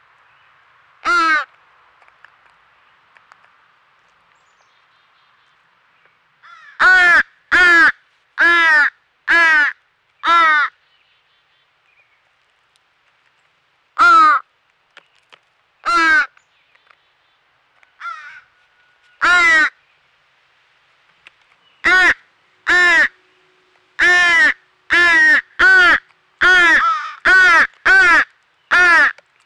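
Fledgling American crow begging with harsh, repeated caws. One call, then a quick burst of five, a few scattered single calls, and near the end an unbroken run of about one call a second.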